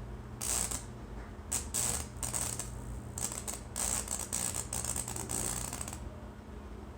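Lichtenberg wood-burning machine arcing between its probes across a board wet with solution: irregular crackling and sizzling bursts from about half a second in to about six seconds in. A steady electrical hum runs underneath. The wood is still a little wet.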